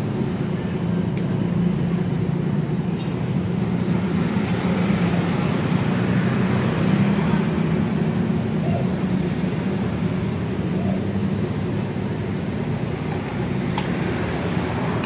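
Steady road traffic noise from passing motor vehicles, a constant low hum with no distinct events.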